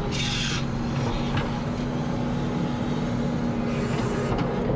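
Excavator engine running steadily at a constant pitch, with a short burst of hiss at the start.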